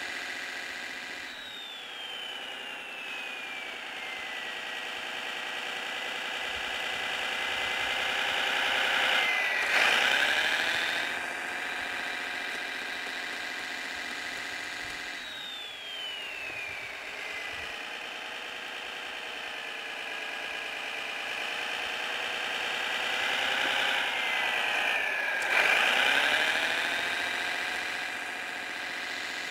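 Engine sound from a Servonaut SMX sound module, played through the small speaker of a Kyosho Blizzard radio-controlled snowcat: a steady simulated engine running. It revs up briefly twice, about a third of the way in and again near the end, and a high whistle falls in pitch twice.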